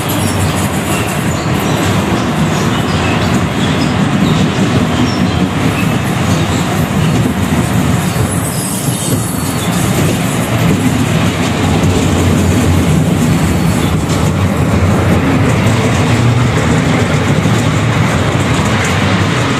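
Amusement-park ride train running along its track, heard from on board: a steady, loud running noise of the car's wheels on the rails that does not let up.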